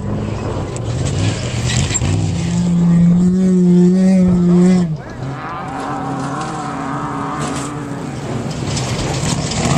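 Off-road race vehicle engines running at speed. A loud engine holds a steady, high-revving note from about two seconds in and cuts off abruptly about five seconds in, leaving a quieter engine running with a wavering note.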